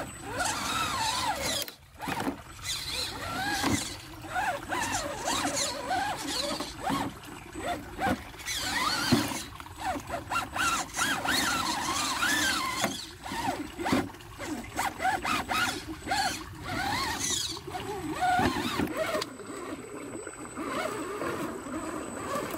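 1/10 scale RC crawler's electric motor and geared drivetrain whining, the pitch rising and falling again and again with short bursts of throttle as the truck crawls through branches and over rocks in a creek.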